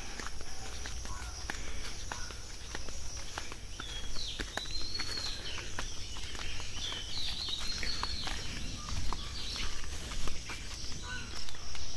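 Footsteps of a person walking on grass and leaf litter, a steady run of soft crunches, with a few birds chirping about four seconds in and again around seven to eight seconds.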